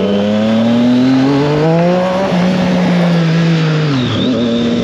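Triumph Street Triple 765 RS's three-cylinder engine pulling under way: revs climb for about two seconds, drop sharply at a quick upshift, hold, then fall as the throttle eases near the end, with wind noise throughout.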